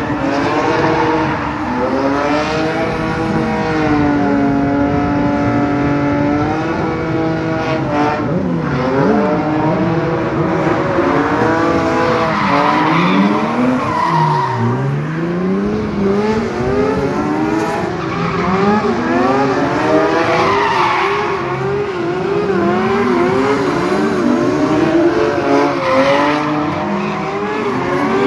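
Stunt-show engines of a drift car and stunt motorcycles revving up and down over and over, with tyres squealing and skidding as the car spins in tyre smoke. One engine holds a steady high rev for a couple of seconds early on, and a deep drop and rise comes about halfway through.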